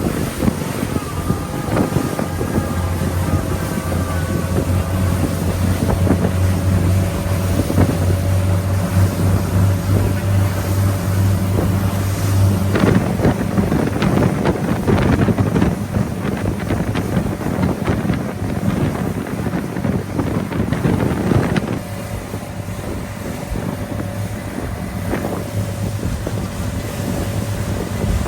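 A boat's engine running steadily under wind buffeting the microphone and the rush of water. For several seconds in the middle the wind and water noise grow louder and more broken, then ease off.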